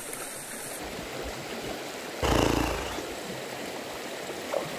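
Shallow river water running steadily over rocks. About two seconds in there is a brief, louder burst of noise lasting under a second.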